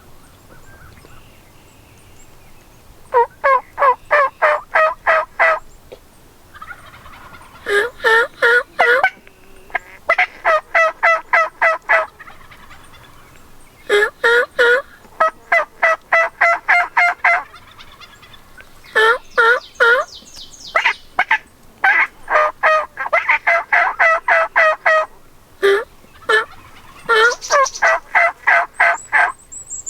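Turkey yelps: repeated runs of loud, evenly spaced notes, about four a second, each run lasting a couple of seconds with short breaks between.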